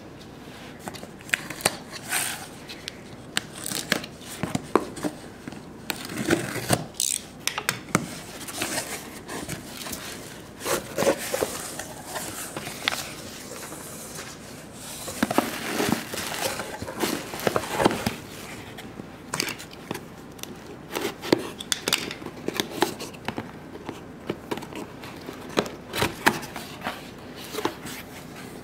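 A taped cardboard shipping box being opened and unpacked by hand: cardboard, packing tape and bubble wrap rustling and crinkling in irregular bursts, with sharp clicks and taps.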